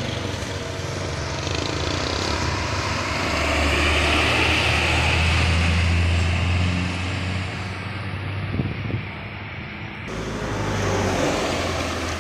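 Heavy vehicles passing close on a road: a large bus's diesel engine and tyres build to a peak and fade away, then, after an abrupt change about ten seconds in, a truck passes with another swell of engine and road noise.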